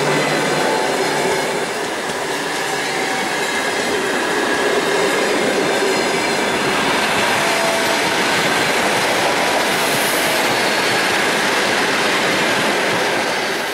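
Passenger coaches rolling past at speed: loud, steady wheel-on-rail noise from the train, still going on as the last coach clears near the end.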